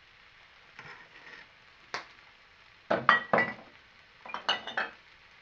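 Kitchen utensils clinking and clattering against cookware and dishes while fried rice is being seasoned. There is one sharp clink about two seconds in, then two short bursts of clatter, the louder near three seconds and another about a second and a half later.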